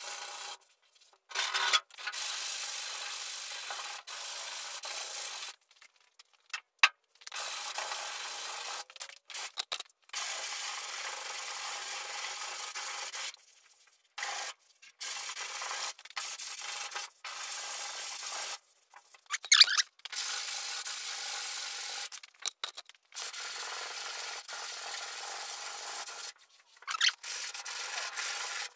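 Sandpaper rubbing over body filler on a truck's steel bedside in steady passes of a few seconds each, broken by short pauses, with a few sharp clicks.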